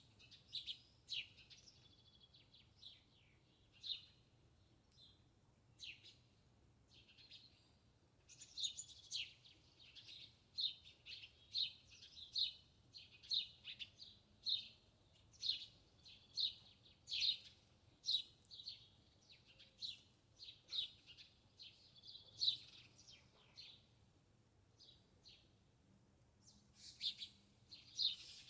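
Small birds chirping: many short, high chirps, scattered at first, then coming in a quick, nearly continuous run from about eight seconds in, thinning out and picking up again near the end.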